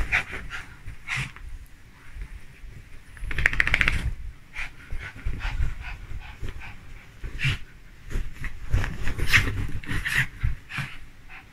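A small dog and a tabby cat play-fighting on a bed: irregular bursts of the dog's breathing and noises amid scuffling and soft thumps on the bedding.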